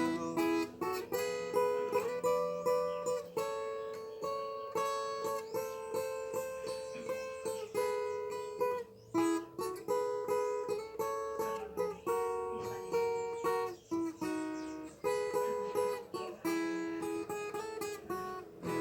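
Instrumental break of a sertanejo modão: plucked strings, led by a viola caipira, playing a melody with sharp picked notes that ring on, and no singing.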